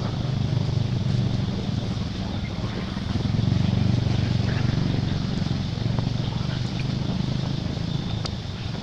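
A steady low engine-like drone, swelling slightly a few seconds in, with a few faint clicks.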